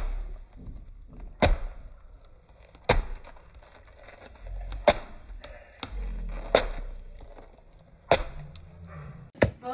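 Large kitchen knife chopping food on a chopping block: single sharp chops about one and a half seconds apart, with a few lighter cuts between them and two quick chops near the end.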